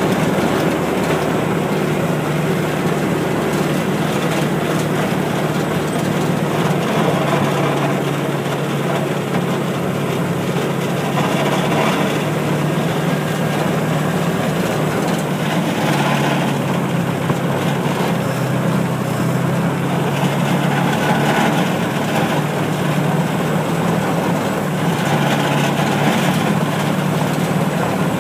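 Engine of a small farm riding vehicle running steadily as it drives along, a continuous drone with a steady low hum.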